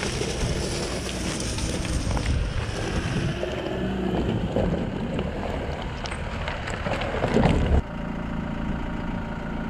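4x4 vehicle driving on a rough track: engine and tyre rumble with wind noise and many short knocks and rattles. It cuts off abruptly near the end to a steadier engine hum.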